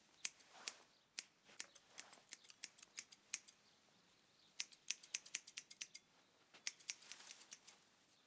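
Hair-cutting scissors snipping close-cropped hair: crisp metallic snips in quick runs, with short pauses between the runs.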